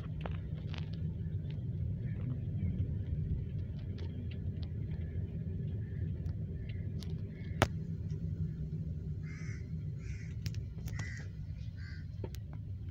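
Steady low rumble of a car driving, with a crow cawing several times in quick succession near the end and one sharp tap just past halfway.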